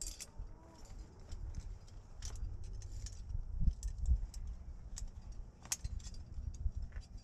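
Metal climbing gear, carabiners and protection on a harness, clinking in scattered short chinks over a low rumble.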